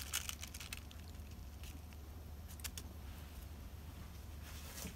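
Faint rustling and a few soft crackles of thin tissue paper being pressed and smoothed by hand onto a glued sheet, mostly in the first second, over a low steady hum.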